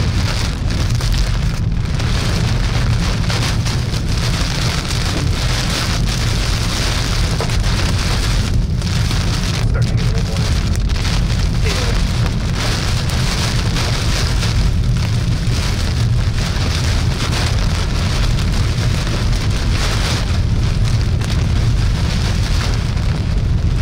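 Heavy rain pelting a car's windshield and roof inside the cabin, over the steady low rumble of the car driving.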